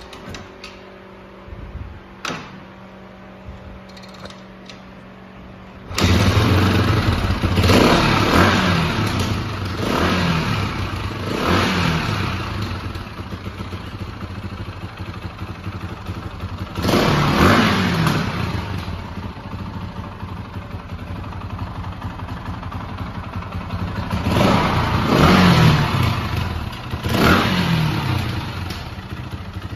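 2005 KTM 525 EXC single-cylinder four-stroke dirt-bike engine starting abruptly about six seconds in after a few clicks, then idling. The throttle is blipped about six times, each rev falling back to idle.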